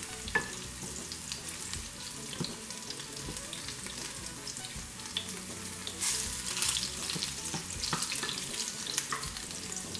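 Garlic cloves sizzling and crackling in hot olive oil in a nonstick skillet, stirred with a wooden spoon, as they cook down toward golden brown.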